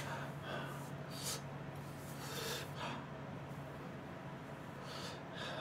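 Quiet room tone with a steady low electrical hum and a man's faint breathing and sniffs.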